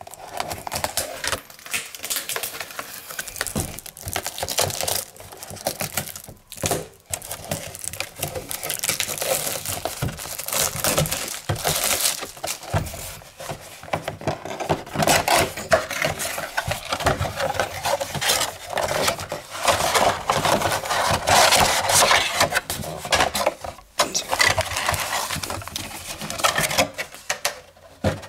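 Plastic shrink-wrap crinkling and a cardboard trading-card box being torn open by hand, with irregular crackling and tearing.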